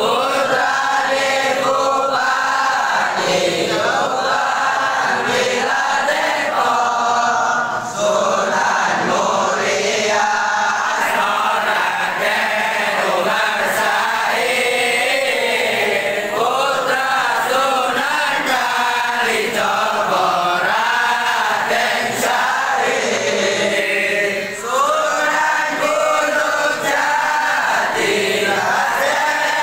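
A group of young men chanting sholawat (Islamic devotional praise, pujian) together in unison, with short breaks between phrases.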